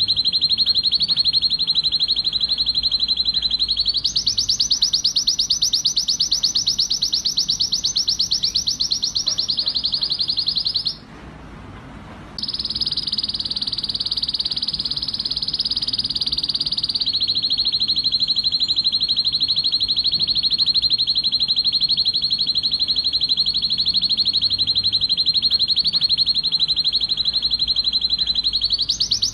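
Male canary singing continuously in fast trills of rapidly repeated notes. The song switches between phrases, stepping to a higher trill about four seconds in, and breaks off briefly around the middle before going on.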